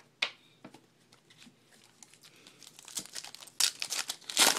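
Wrapper of a 2012 Bowman baseball card pack being torn open and crinkled: scattered small crackles that thicken into a dense burst of crinkling near the end.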